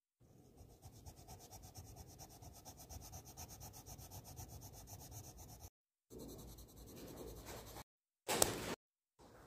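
Colored pencil shading on paper in quick, even back-and-forth strokes, a scratchy rubbing, cut off abruptly a few times. A brief louder handling noise comes near the end.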